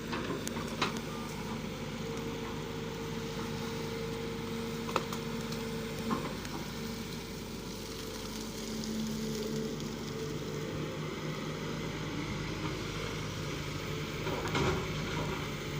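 A machine running steadily, a continuous hum with a few steady tones, with a sharp knock about five seconds in.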